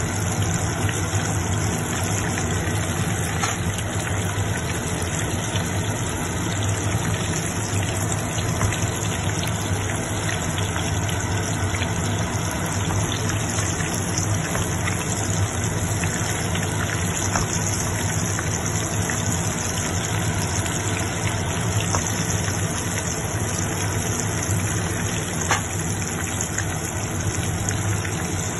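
Breaded pork cutlet deep-frying in a wok of hot oil: a steady sizzle and crackle over a steady low hum.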